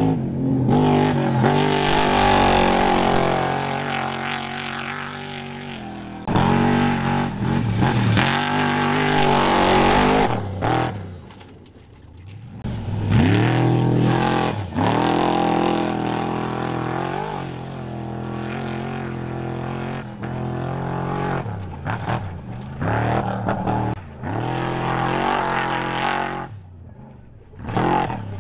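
Trophy Truck race engines revving hard and loud on the course, pitch rising and falling with throttle and gear changes. Several loud stretches come and go as the trucks go by.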